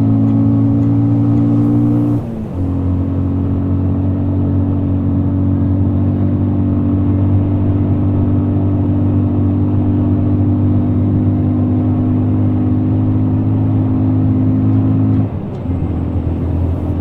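Bajaj Avenger 160's stock single-cylinder engine running steadily at constant revs while the bike is ridden. The revs dip briefly about two seconds in, then ease off and the sound drops near the end.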